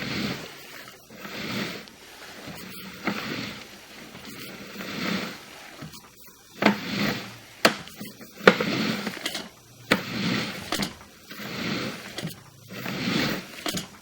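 Sewer inspection camera's push cable being fed by hand into a basement cleanout, scraping in repeated pushes about every one to two seconds, with a few sharp clicks near the middle.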